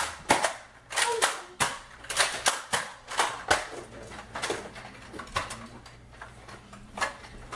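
Nerf blasters clacking in a quick run of sharp clicks from firing and cocking, coming several a second at first and thinning out after about four seconds.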